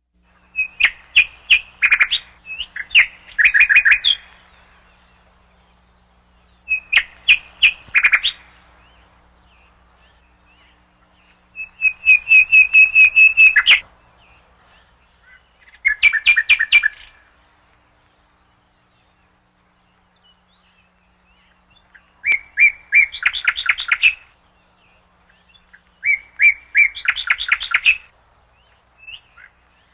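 Nightingale singing in separate phrases of fast repeated notes and whistles, about six phrases with pauses of a few seconds between them. The phrase in the middle is a long, even run of rapid repeated notes.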